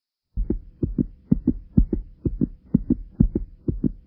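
Heartbeat sound effect: a fast double thump, lub-dub, repeating about twice a second, starting a moment in. A faint steady hum lies underneath.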